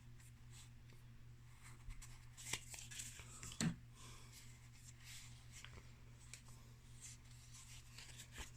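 Magic: The Gathering trading cards being handled and flipped through: faint slides, taps and rustles, the loudest about a third of the way in, over a steady low hum.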